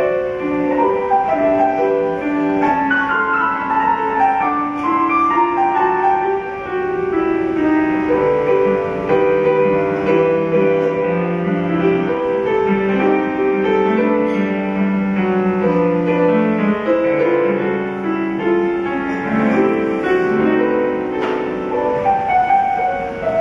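Grand piano played live: a continuous melody over changing chords.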